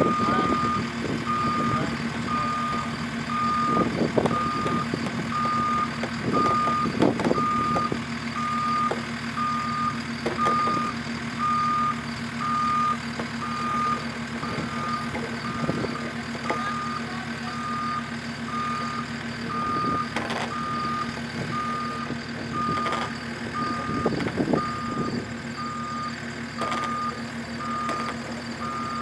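JCB Skidster skid steer idling steadily with its alarm beeping at about one and a half beeps a second, with a few knocks as wooden posts shift out of the bag.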